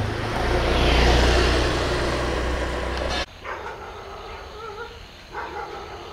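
A vehicle passes on the road, its rushing noise and deep rumble swelling and easing. It cuts off suddenly about three seconds in, and a dog follows with several short whining calls.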